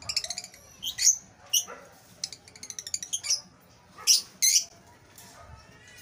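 Lovebirds calling: sharp, high-pitched chirps and shrill calls, with quick chattering trains of clicks in between. The loudest calls come about a second in and again around four seconds in.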